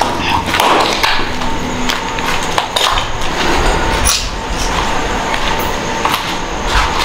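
Footsteps on a concrete floor and rustling handling noise as people walk, with a faint steady whine underneath.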